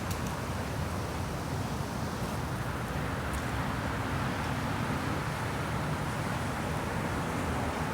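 Steady rush of spring wind, with a constant low rumble underneath.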